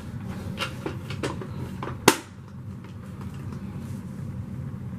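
Plastic parts of an upright vacuum being handled and fitted back together: a few light knocks, then one sharp, loud clack about two seconds in.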